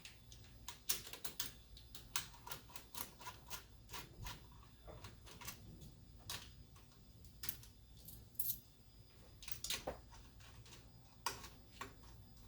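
Hand tools and metal parts clicking and clinking irregularly while a carburetor is unbolted from a V8 engine, some clicks coming in short clusters.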